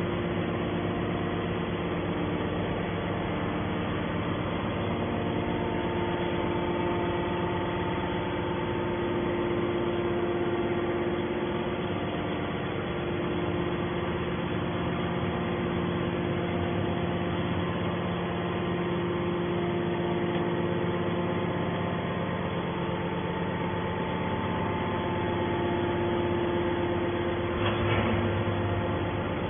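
Hydraulic scrap metal baler's motor and pump running idle with a steady hum made of several constant tones. A brief louder noise about two seconds before the end.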